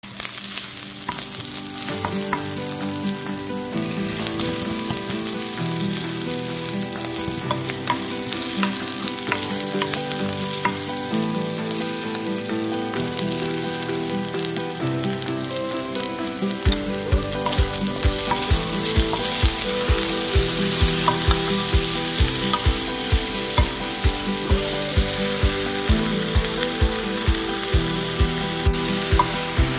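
Onions, garlic, green chilies and then longganisa with sliced chayote sizzling as they fry in a hot pan. From about halfway, regular knocks about twice a second come in as the food is stirred and tossed.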